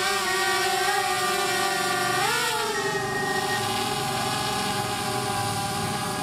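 DJI Mavic Air quadcopter flying on its stock propellers, the rotors giving a steady high-pitched buzzing hum. A bit over two seconds in the pitch rises briefly as the drone climbs, then settles and slowly gets quieter as it rises away.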